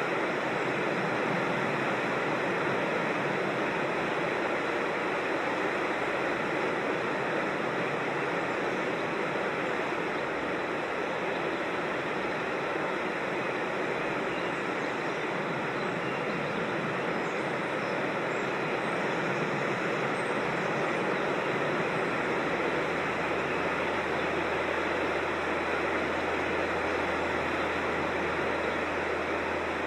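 Creek water rushing steadily over rocks in an even, unbroken rush.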